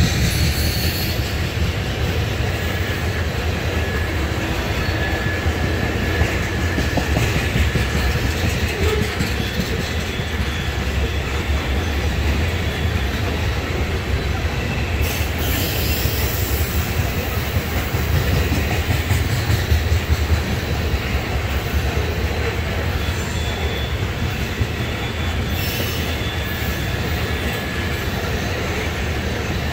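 Railroad tank cars of a loaded oil train rolling steadily past: a continuous low rumble of steel wheels on rail, with faint wheel squeals now and then.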